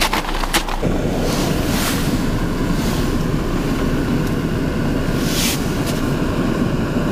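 Propane canister camp stove burning under a kettle, heating water: a steady rushing noise of the flame, starting about a second in.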